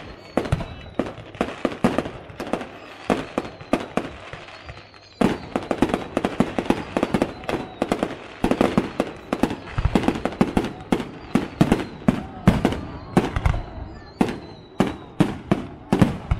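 Aerial fireworks display: a rapid barrage of shell bursts and bangs, growing denser and louder about five seconds in.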